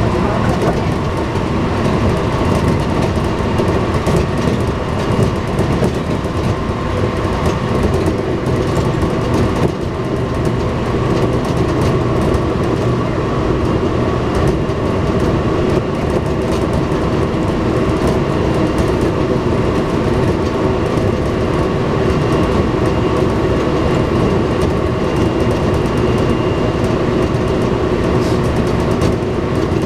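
Kintetsu electric train car running at speed, heard from inside: steady rumble of wheels on rail with a few held tones from the running gear over it.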